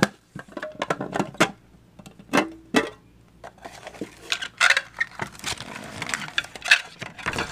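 Clear plastic trading-card storage cube being handled and opened: a run of hard plastic clicks and knocks, then the foil booster packs inside rustling as they are slid out of the box, about four seconds in.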